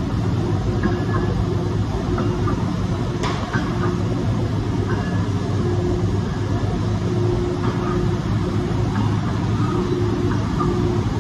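Heavy factory machinery in a kraft paper plant running steadily: a loud, even drone with a low hum, and one sharp click about three seconds in.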